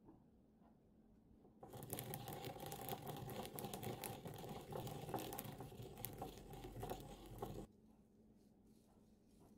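Toasted sesame seeds being ground with a wooden pestle in a small ridged ceramic mortar (suribachi): a gritty, crunching rasp of fine rapid scrapes. It starts about a second and a half in and cuts off abruptly near the end.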